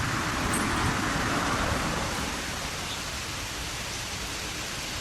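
Steady rushing noise with a low rumble underneath, a little louder over the first two seconds.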